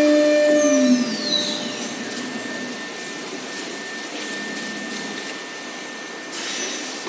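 CNC router spindle whine dropping in pitch and dying away in the first second or two as the spindle spins down, leaving a steady vacuum-like rushing noise with a thin constant high tone.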